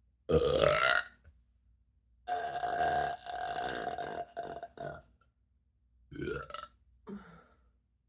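A person burping up trapped gas from drinking carbonated ginger ale, four burps in all. The first is short, loud and rising in pitch, about a quarter second in. Then comes a long, drawn-out one of about two and a half seconds on a steady pitch, followed by two shorter, fainter ones near the end.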